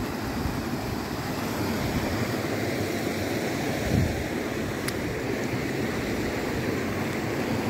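River water rushing over a low rocky weir, a steady rushing noise, with some wind on the microphone. A low thump about four seconds in.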